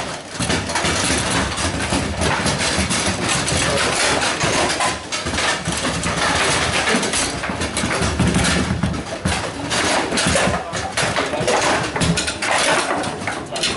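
Foosball in play: quick clacks and knocks of the ball against the rod players and table walls, with rods sliding and rattling, over a steady clatter of a busy playing hall.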